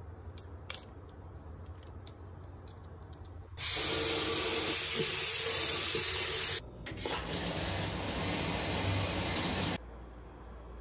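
Bathroom sink faucet running hard into a ceramic basin for about six seconds while a toothbrush is rinsed under it, with a brief break partway, then shut off abruptly. Before the water comes on there are a few light clicks from handling the toothbrush and its plastic wrapper.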